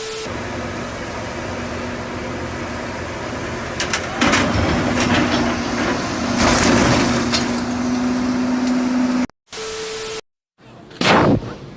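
Heavy machinery running with a steady low hum. About four seconds in, a series of loud bangs and crashes begins, lasting a few seconds. The sound cuts out twice, and a sharp falling whoosh follows near the end.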